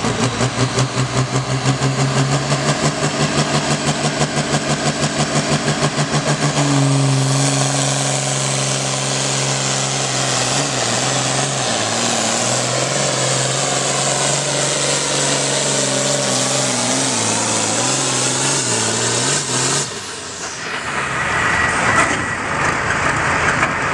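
International 1066 diesel pulling tractor's engine running with a pulsing, uneven beat, then revving up hard about seven seconds in and running flat out under load as it drags the weight-transfer sled, its pitch dipping and recovering several times. About twenty seconds in the throttle comes off and the engine drops back.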